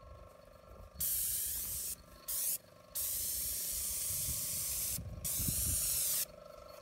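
Airless paint spray gun hissing as black paint is sprayed at high pressure, triggered in four bursts with short breaks between them, the longest about two seconds. A faint steady hum runs underneath.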